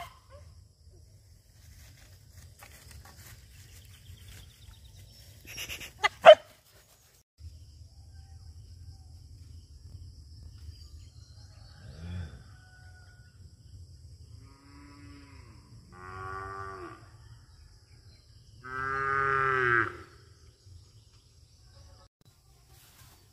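Two sharp knocks about six seconds in, then cattle lowing: three moos near the end, the last the longest and loudest.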